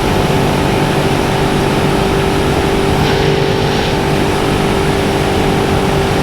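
Motorcycle engine running at a steady cruise, its pitch holding even, under constant wind and road rush.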